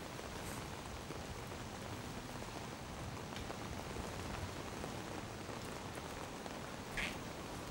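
Steady rain falling, an even hiss, with one short click about seven seconds in.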